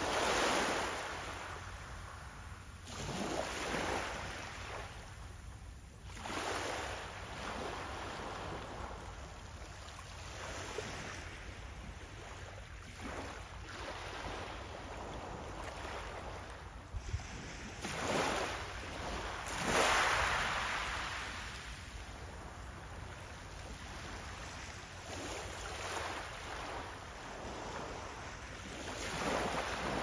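Small sea waves breaking and washing up a pebble beach, the surf swelling and fading every few seconds, loudest about two-thirds of the way through, over a low steady rumble of wind on the microphone.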